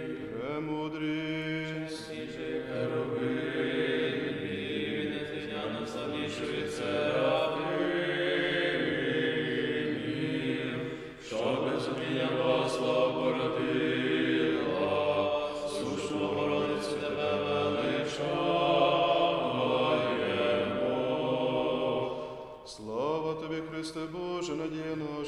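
Small group of men singing Ukrainian Greek Catholic liturgical chant unaccompanied as the responses of a memorial service. The singing is sustained, with two short pauses for breath, one about halfway through and one near the end.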